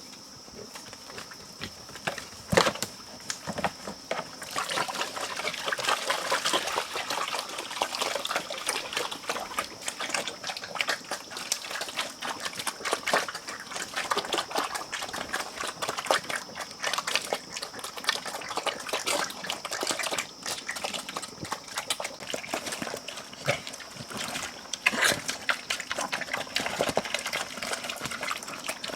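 Pigs eating wet cooked feed: dense, irregular wet chomping and slurping that starts about four seconds in and keeps going, after a single sharp knock. A steady high tone runs underneath.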